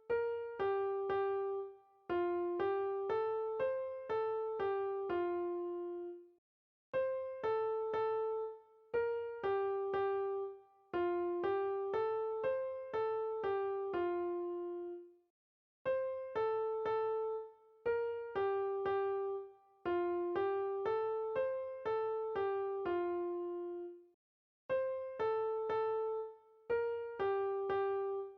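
Background music: a gentle electric piano melody playing short repeating phrases of quick notes, the same loop coming round every few seconds.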